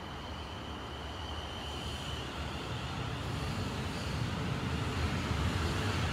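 Siemens Desiro Class 450 electric multiple unit approaching as it arrives at the station, its rumble of wheels on rail growing steadily louder. A high steady tone fades out about two seconds in.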